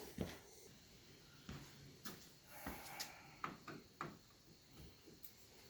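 Faint, scattered clicks and light knocks of hand-work with a flathead screwdriver on plastic trim parts.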